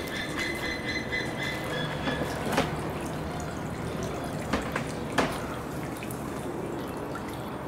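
Water sloshing and trickling as a brown bear bathes in a pool, with a few sharp clicks.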